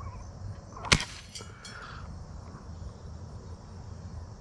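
A single sharp snap from a BB gun about a second in, followed by a few lighter clicks.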